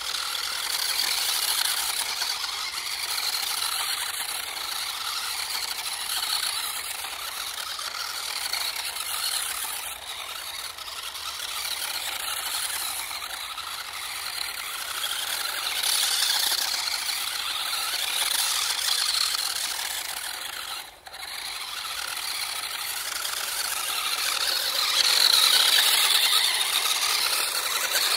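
Electric RC drift car running: a continuous high-pitched rattling whir of the small motor and sliding wheels that rises and falls in level. It dips sharply for a moment about three-quarters of the way through and is louder near the end.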